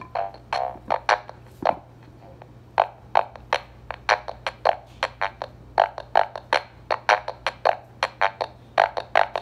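Drum machine beat played through a homemade fuzz pedal: short, buzzy distorted hits in a quick rhythm, thinning out briefly about two seconds in. A steady low hum runs underneath.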